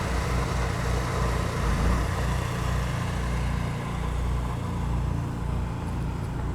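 An engine running steadily, a low rumble with no change in speed.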